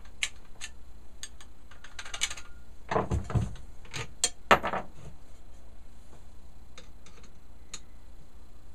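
Scattered metal clicks and knocks of a Makita angle grinder being handled on a wooden workbench, with a few heavier clunks about three seconds in and again a little later as it is set down, while its disc and flange nut are being taken off.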